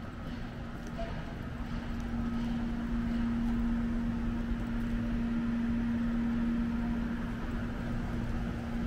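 A steady machine hum at one pitch that swells in the middle and eases off near the end, over a low rumble of city background noise.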